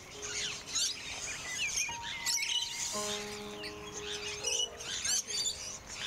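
Soft background music with long held notes, over many small birds chirping and tweeting.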